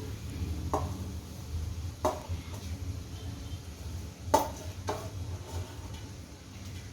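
Cooking utensil knocking and scraping against a cast iron kadhai while boiled rice is added to stir-fried vegetables: a few sharp knocks, the loudest a little past the middle, over a steady low rumble.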